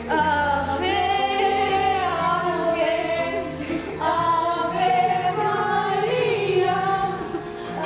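A woman's voice, joined by others, singing a lively song over musical accompaniment, in two phrases with a short break about four seconds in.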